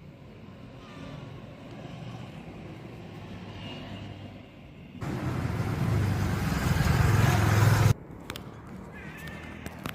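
A road vehicle's engine growing louder as it approaches, then running loud and close for about three seconds before cutting off suddenly. A few sharp clicks follow.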